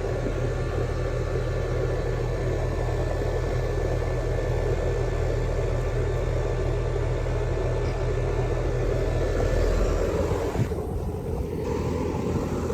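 Outdoor condensing unit of a 5-ton Lennox Elite central air conditioner running: a steady drone from the compressor and condenser fan, with a deep hum underneath. The deep hum thins out about ten seconds in.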